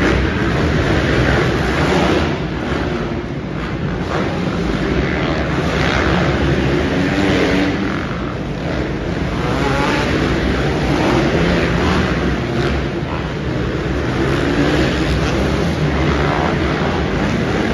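Several 450-class dirt bike engines racing around an indoor arenacross track, revving up and down over one another in the arena.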